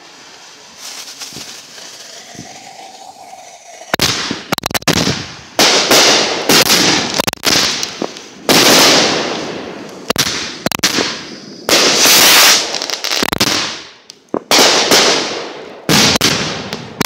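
Several consumer fireworks set off together, close by: after a few quieter seconds, a rapid string of loud bangs starts about four seconds in and keeps going, shot after shot, each with a fading tail.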